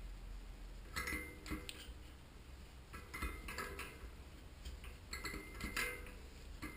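Scattered light metal clinks as a cone spanner turns the slotted end piece out of a Mavic Deemax 20 mm front hub.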